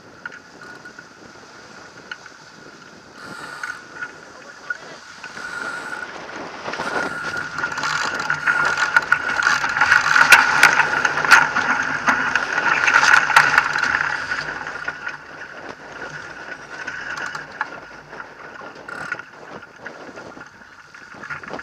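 Water rushing along a J-22 sailboat's hull with wind noise, building to a loud rush about six seconds in, with many sharp clicks and rattles from the sheets and deck gear as the boat rounds a race mark. The rush eases in the second half as the boat slows after the rounding.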